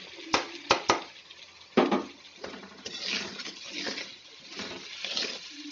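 Sliced onions dropped into a kadai of hot oil and spice masala, with a few sharp knocks of plate and spatula against the pan in the first two seconds. After that comes a pulsing sizzle and scrape as the onions are stirred with the spatula.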